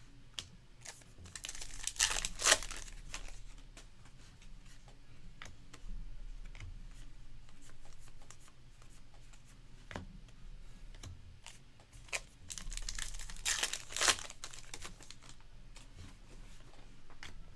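Baseball card pack wrappers being torn open and crinkled, with small handling clicks and rustles of cards in between. The loudest rips and crinkles come about two seconds in and again around thirteen to fourteen seconds.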